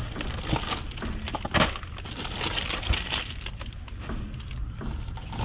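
Rummaging through trash: plastic sheeting, bags and cardboard boxes rustling and crinkling as they are shifted and handled, with irregular clicks and knocks.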